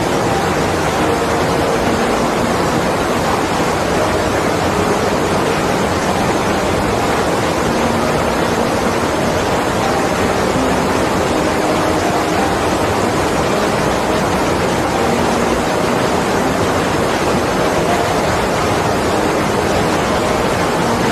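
Mountain stream rushing over rocks in small cascades: a loud, steady rush of white water.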